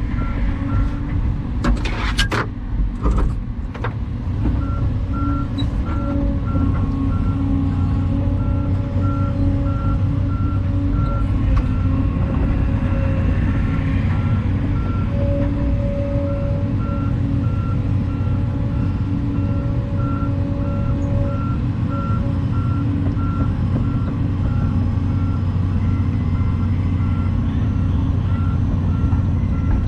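Volvo EC220 excavator's diesel engine running steadily, with a few sharp clanks in the first few seconds. From about four seconds in, a backup alarm beeps at an even pace.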